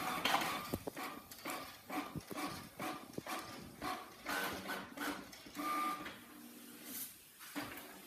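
Inkjet all-in-one printer printing a page: a run of short whirring and clacking bursts from its carriage and paper-feed motors, some with a brief whine, sneeze-like in their stop-start rhythm.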